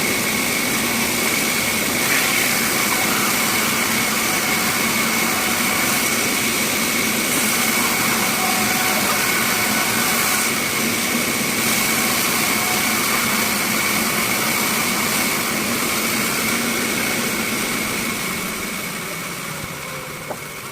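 Bandsaw machine running steadily, a continuous mechanical noise with a constant high whine, fading away over the last few seconds.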